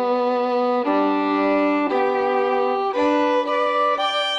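Background music: a slow melody of long held notes in a violin-like tone, the note changing about once a second.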